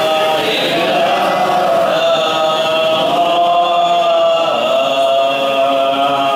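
Men's voices chanting together in a devotional chant, one long unbroken melodic line of drawn-out notes that slowly bend in pitch.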